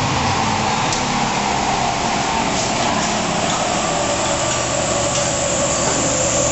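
Car on a chassis dynamometer: a steady mechanical running noise with a whine that slowly falls in pitch.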